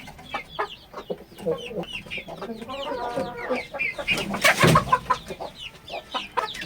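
A flock of hens clucking in a cramped poultry house, many short overlapping calls. A short, louder burst of noise comes a little past the middle.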